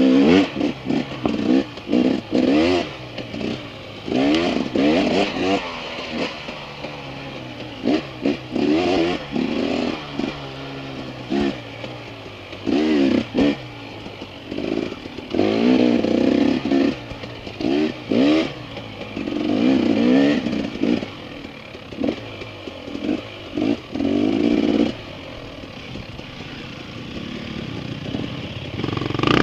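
Dirt bike engine revving in short throttle bursts, the pitch rising and cutting off about a dozen times, then running lower and steadier near the end.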